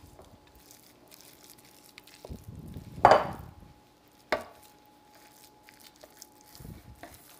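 A spatula scraping thick batter out of a bowl and knocking against a metal loaf pan: one loud knock about three seconds in, a sharp tap about a second later, and soft scrapes around them.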